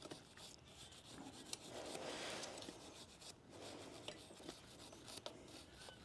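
Faint scrubbing of a toothbrush's bristles on a motorcycle drive chain, worked between the side plates to clean out grime, in a few slow strokes with light ticks.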